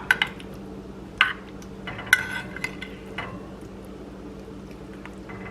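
A spoon clinking and scraping against a baking dish while roasted sweet potatoes are stirred in their syrupy butter glaze. About six sharp, ringing clinks come in the first three seconds, then quieter scraping, over a steady low hum.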